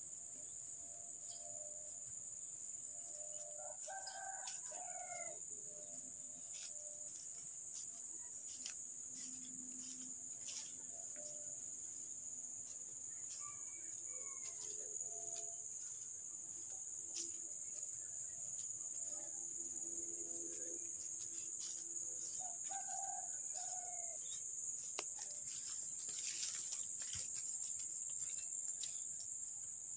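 Insects buzz in a steady, high-pitched drone. A rooster crows three times, spaced roughly nine seconds apart, over the scattered crunching clicks of footsteps through dry grass and brush.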